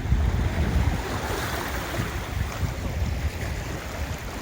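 Wind buffeting the microphone in uneven gusts, over a steady rushing noise.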